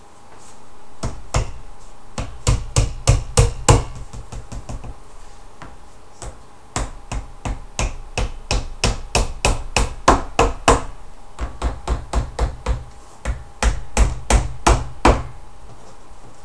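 Hammer driving nails through the thin back panel of a flat-pack chest into its frame. The blows come in three runs of quick strikes, a few a second, with short pauses between.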